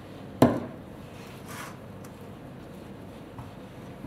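A single sharp knock about half a second in, with a short ring, as a pepper mill is set down on the countertop. Then a low steady room hum with a faint rustle.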